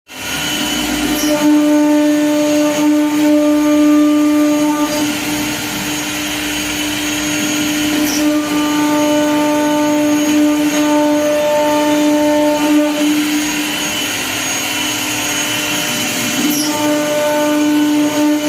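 CNC router spindle cutting an aluminium composite (ACP) sheet: a steady high-pitched motor whine over a hissing cutting noise. The whine weakens for a few seconds at a time and then comes back.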